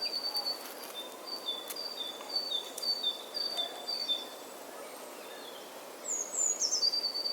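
A small songbird singing a high two-note phrase, one note a little above the other, repeated about seven times. Near the end come a few quick falling notes, all over a steady faint outdoor hiss.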